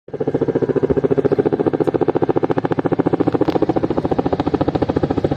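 Firefighting helicopter's rotor beating in a rapid, steady chop.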